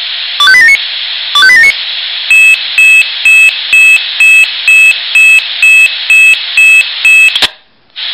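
Swissphone Quattro XL+ fire-brigade pager sounding its test alarm: short rising three- or four-note tone phrases about once a second, then a run of quick beeps about two a second. The beeps stop with a click and a brief gap before the rising tones start again, all over a steady hiss.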